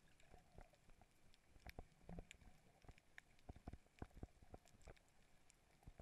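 Near-silent underwater ambience on a coral reef, recorded through a camera housing: faint irregular clicks and taps, several a second, over a low hiss.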